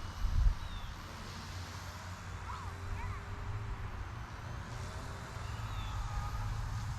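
Eachine E119 micro RC helicopter hovering at a distance: the faint whine of its coreless main motor and rotors, rising and falling slightly in pitch, over a steady low rumble.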